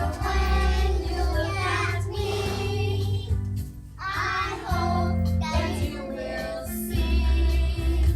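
A group of young children singing a song together over instrumental backing music.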